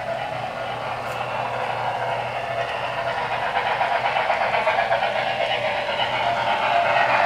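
Broadway Limited Imports HO scale Norfolk & Western Y6b 2-8-8-2 model steam locomotive running, its Paragon3 onboard sound system playing steam-locomotive sounds. It grows steadily louder as it approaches.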